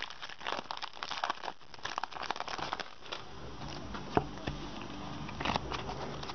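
Foil wrapper of a Pokémon trading card booster pack crinkling as it is torn open. There is a thick run of crackling for the first two seconds, then sparser rustles and a few sharp clicks as the cards are handled.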